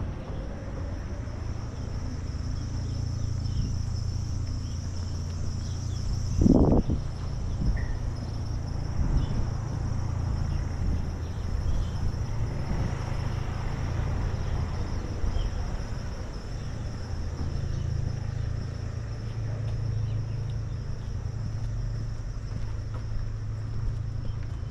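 Street traffic ambience: a steady low rumble of motor traffic, with a brief loud thump about six and a half seconds in.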